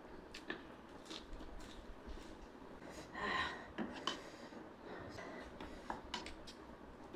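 Eating sounds: scattered light clicks and scrapes on a plate, with a louder breathy mouth noise a little after three seconds in.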